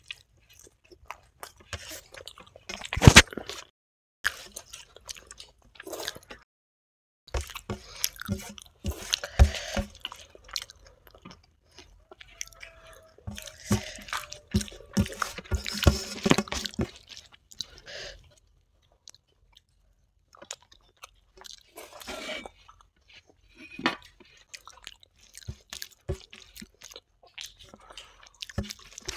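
Close-miked eating sounds: chewing and crunchy bites, with the wet squish of fingers mixing rice and dal. They come in irregular bursts with short pauses; the loudest is about three seconds in.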